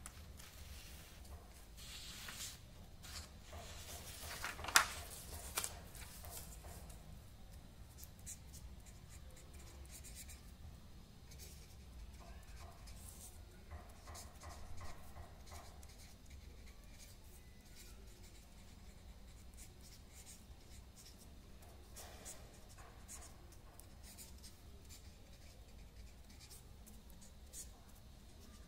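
Pen writing on paper: faint, scratchy strokes that come and go. A sharp click about five seconds in is the loudest sound, with a smaller one just after.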